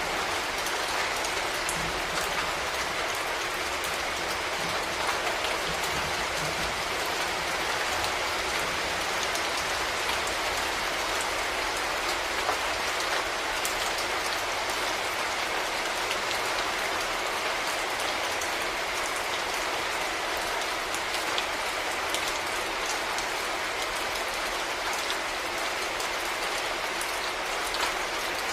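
Steady rain: an even hiss of rainfall with many small drop ticks scattered through it.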